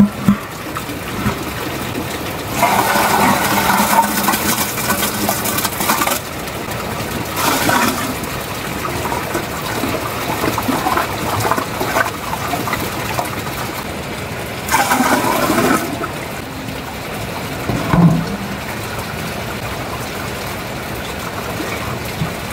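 Steady rush of running water, with several louder stretches of splashing and metal pots being handled while a copper raksi still pot is set up over a wood fire.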